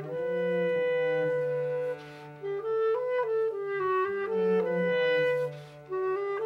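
Persian music: a melody moving from note to note over a lower sustained line, with brief breaks between phrases about two seconds in and near the end.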